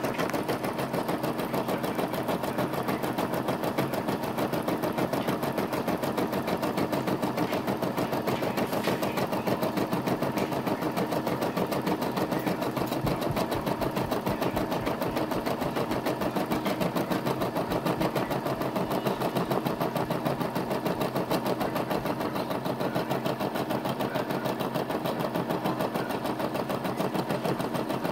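Brother SE425 embroidery machine running steadily while embroidering a design, its needle striking in a fast, even rhythm.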